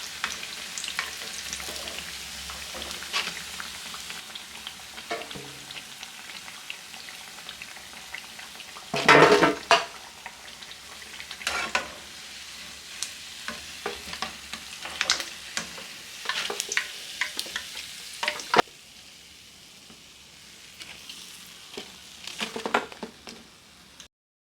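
Masala vadas (chana dal fritters) sizzling in hot oil as they are lifted out, with scattered sharp clinks and a louder clatter about nine seconds in. The sizzle drops away about two-thirds of the way through, leaving softer frying and a few clinks.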